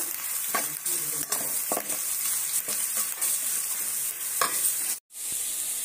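Chopped onions sizzling in hot oil in a metal kadai, stirred with a spatula that scrapes and knocks against the pan now and then. The sound drops out for a moment near the end.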